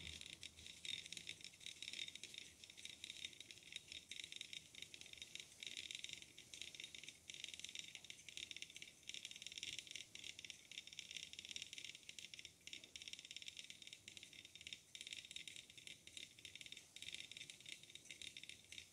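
Small battery-powered gear motor of a drawing robot running, with a faint, steady rattle as it drives the machine around the paper.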